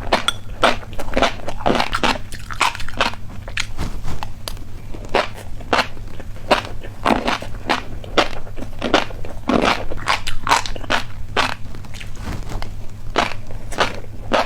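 Close-miked chewing of a crunchy snack: a steady run of crisp crunches, about two to three a second, over a constant low hum.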